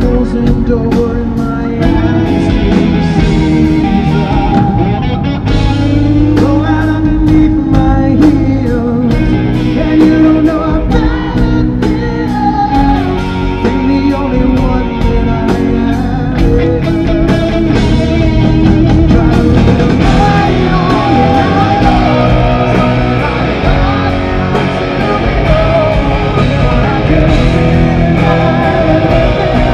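Live rock band playing loudly: a male lead voice singing over electric guitar and drums.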